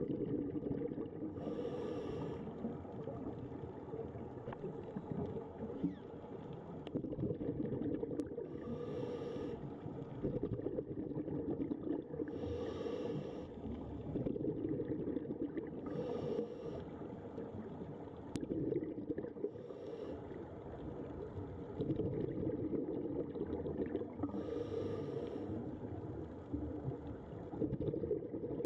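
Scuba diver breathing through a regulator underwater: six gurgling bursts of exhaled bubbles, a few seconds apart, over a steady low underwater rumble.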